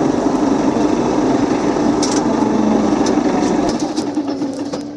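Cabin noise inside a BTZ-5276-04 trolleybus under way: a steady hum from the electric drive over road and tyre noise, with a few short clicks, growing quieter about four seconds in.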